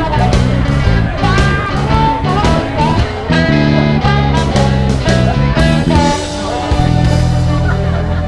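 Rock music led by guitar over bass and drums, with bending lead notes; about seven seconds in it settles onto a long held low chord.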